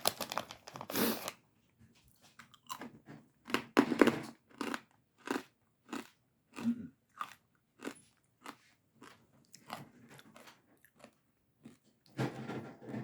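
Chewing crunchy chicharrones (fried pork rinds): a dense burst of crunching at the start, then separate crunching chews about two a second, and more dense crunching near the end.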